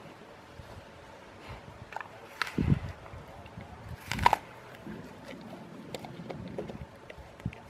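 Bull terrier biting and chewing an apple: sharp crunches with small chewing clicks between, two louder bites about two and a half and four seconds in, the second the loudest.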